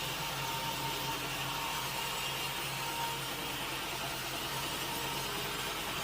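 Sawmill machinery running steadily: a constant hum under an even hiss, with no change in pitch or level.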